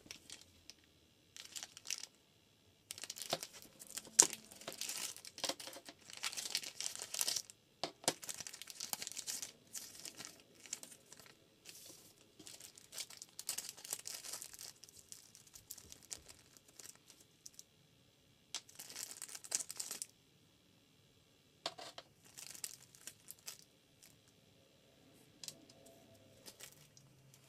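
Crinkling and rustling handling noise in irregular bursts, with a few sharp clicks, as of plastic packaging and small parts being handled.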